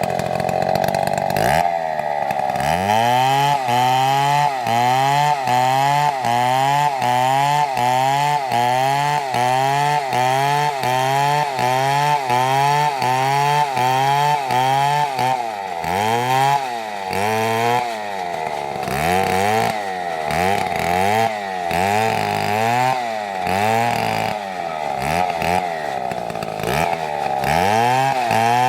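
Two-stroke chainsaw running at high revs while cutting a dead palm trunk. Its pitch dips and climbs again over and over, about once or twice a second, and becomes less regular in the second half.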